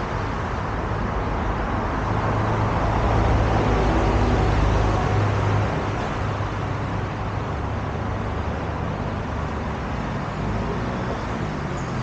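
Road traffic on a wide multi-lane road: steady tyre and engine noise that swells louder as vehicles pass from about two to five seconds in, then settles back to a steady hum.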